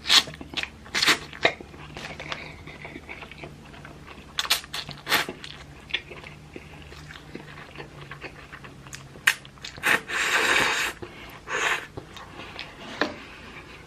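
A person eating instant hot chicken ramen noodles close to the microphone: chewing and repeated short lip smacks, with one longer slurp about ten seconds in.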